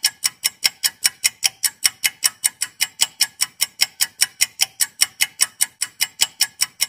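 Rapid, even ticking like a fast clock, about five sharp ticks a second, each fading quickly.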